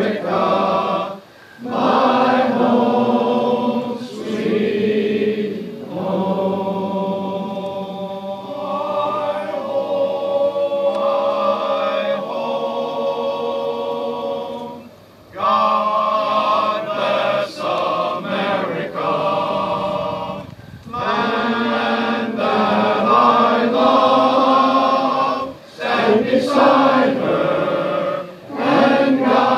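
A men's chorus singing in harmony, in long held phrases with brief breaks between them.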